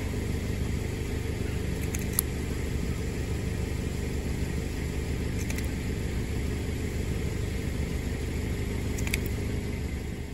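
Steady low engine rumble at an even level, with a few faint, brief high clicks scattered over it.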